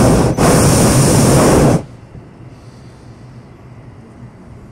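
Hot-air balloon's propane burner firing with a loud, steady roar, broken by a brief dip near the start. It shuts off abruptly a little under two seconds in, leaving a much quieter hiss.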